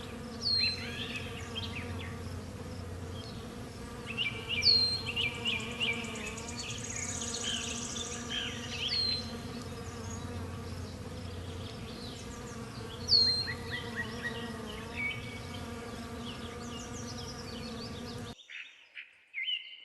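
A wasp buzzing in a steady drone, with short high chirps scattered through the background; the buzz cuts off near the end.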